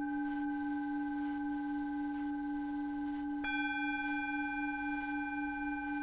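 Steady electronic drone of layered pure tones, a planetary-frequency tone for Mars and the synodic Moon. About three and a half seconds in, a faint click brings in higher tones, and the low tone starts to pulse about four times a second.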